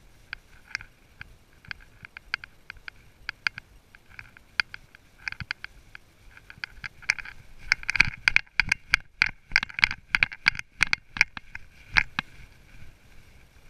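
Horse's hooves crunching and rustling through dry fallen leaves as it walks on a woodland trail, an irregular run of crackling steps that grows busier past the middle.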